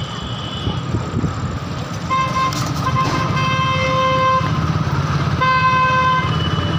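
Vehicle horn honking in two long blasts, the first about two seconds in and lasting over two seconds, the second shorter near the end, over the steady low running of a road vehicle's engine.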